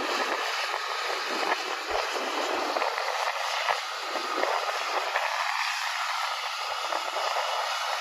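Steady running noise of a John Deere combine harvesting soybeans, its engine and threshing and spreading machinery working through the crop.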